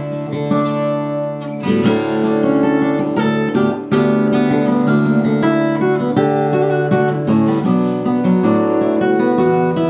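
Steel-string acoustic guitar played fingerstyle, unplugged: a picked melody over sustained bass notes, moving through chord changes.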